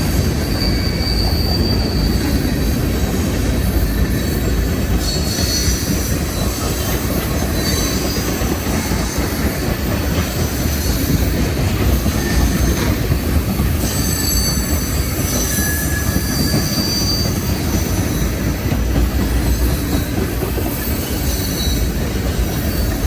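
A freight train's cars rolling past with a steady heavy rumble, broken by short high-pitched wheel squeals that come and go every second or two.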